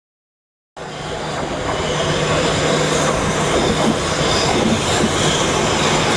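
Southeastern Electrostar electric multiple unit running into the platform, wheels on the rails and motors sounding steadily with a faint low hum. It starts abruptly under a second in, after silence.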